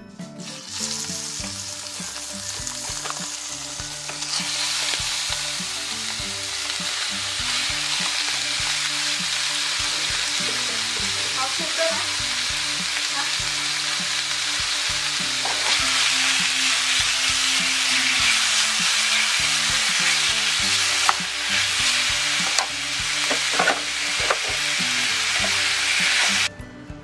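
Strips of raw beef sizzling as they fry in a hot non-stick frying pan. The hiss starts about a second in and gets louder a few seconds later. A plastic slotted spatula stirs the meat, making a few clicks and scrapes in the later part, and the sizzle cuts off suddenly just before the end.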